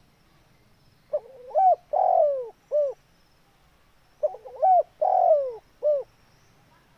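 Spotted dove cooing: two phrases about a second apart. Each phrase is a couple of short rising notes, then a long, louder falling coo, then a short final note.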